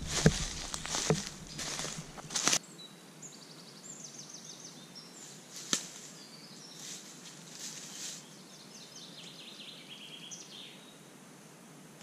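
Footsteps crunching through dry leaf litter for the first couple of seconds, then quiet woodland ambience with a small songbird singing short phrases of rapid trilled notes, and a single sharp click about halfway through.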